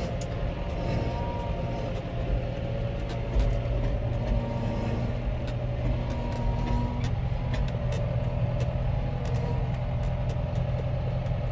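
John Deere 4440 tractor's diesel engine running steadily, heard from inside the cab as a low, even hum.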